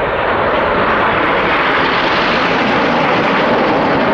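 Red Arrows BAE Hawk T1 jets passing in formation: loud, steady jet noise that swells just at the start and then holds.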